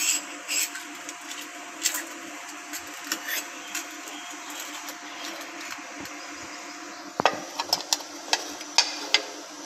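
A metal spoon clicking and scraping against a small steel bowl as a steamed egg patty is loosened from it, then a quick cluster of sharp knocks near the end as the bowl is turned over and tapped onto a plate to release the patty.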